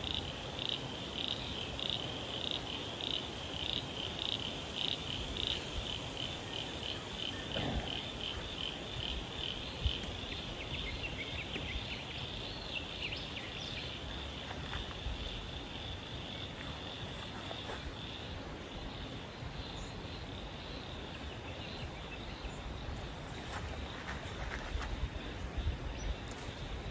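A chorus of rhythmic, high-pitched chirping calls, about three pulses a second, that thins after about ten seconds into a fainter, steadier trill. A few light taps and rustles come near the end.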